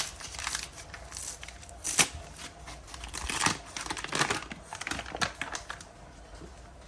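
Plastic packet of bicarbonate of soda crinkling and rustling as it is handled and tipped out, with irregular clicks and one sharp tap about two seconds in. It dies down near the end.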